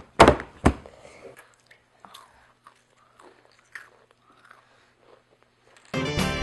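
Two sharp clicks or knocks in the first second, then faint scattered small handling noises; band music with drums and guitar starts near the end.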